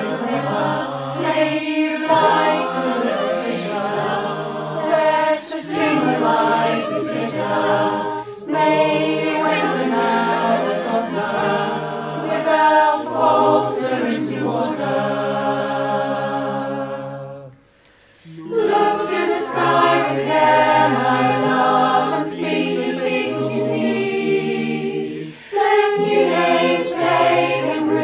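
Mixed choir of men's and women's voices singing in harmony, many separate home recordings layered into one mix. The singing breaks off for a moment about two-thirds of the way through, then carries on.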